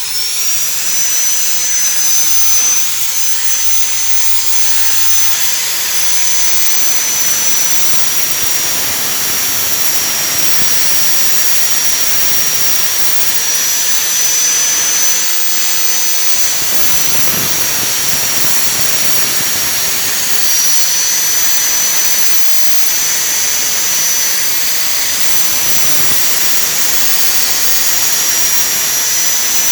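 Electric grinder running continuously on the steel of a circular saw blade: a high steady motor whine over a loud hiss of abrasive on metal, the whine dipping slightly now and then as the load changes.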